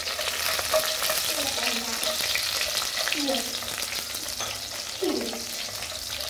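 Garlic cloves frying with a steady sizzle in a nonstick pot, stirred with chopsticks that click and scrape against the pot.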